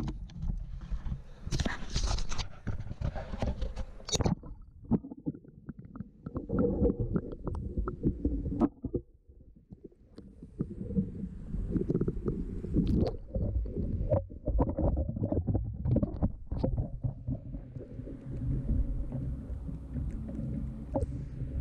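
Muffled low rumbling with irregular knocks and clicks: handling noise and water against a kayak hull, heard through a waterproof action-camera housing while a fish is fought on rod and reel. It drops briefly quieter about nine seconds in.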